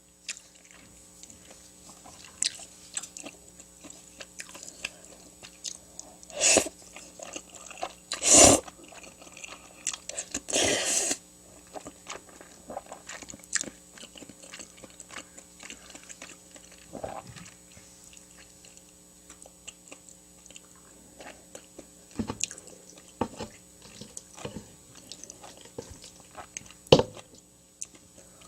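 Close-miked eating: chewing and biting with many small wet clicks. A few louder crunchy bites and one longer noisy burst come in the first half.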